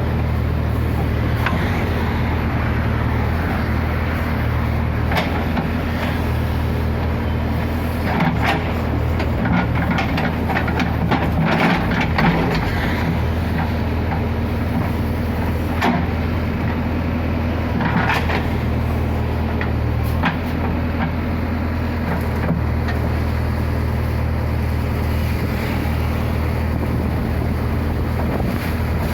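JCB backhoe loader's diesel engine running steadily. Scattered knocks and scrapes come from the machine working, bunched about a third of the way in, with a couple more later.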